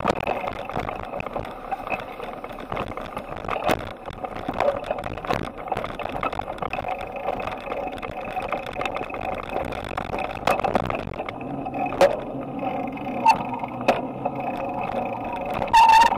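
Bicycle riding noise heard through a handlebar-mounted camera: steady tyre and road noise with frequent sharp clicks and rattles as the bike goes over bumps.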